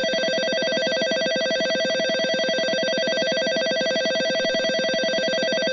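JR East platform departure bell, an electronic bell ringing continuously with a rapid, even trill. It is the signal that the train's doors are about to close and it is about to leave.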